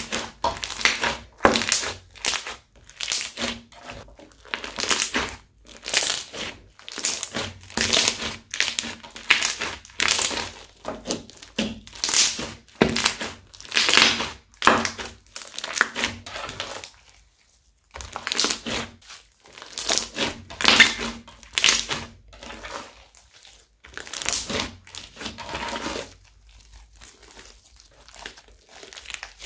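Crunchy slime with small beads mixed in being squeezed and kneaded by hand, giving repeated crunching, crackling squeezes about one or two a second. There is a short pause about 18 seconds in, and the handling grows quieter near the end as the slime is stretched.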